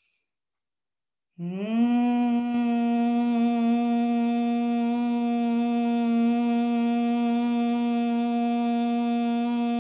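A woman humming a closed-lips om in Bhramari breath: after a silent inhale, the hum starts about a second and a half in, slides briefly up in pitch, then holds one steady note.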